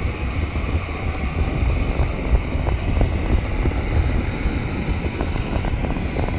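A model train running along its track, heard from a camera riding on it: a steady low rumble of the motor and wheels, with faint clicks of the wheels over rail joints.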